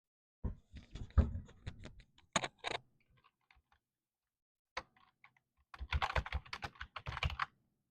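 Computer keyboard typing: quick runs of keystroke clicks, with a pause of about two seconds in the middle.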